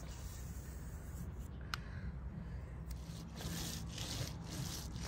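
Irregular rubbing strokes by hand on the boat's deck surface, as in rough sanding and wiping it down before coating, coming faster in the second half over a low steady rumble.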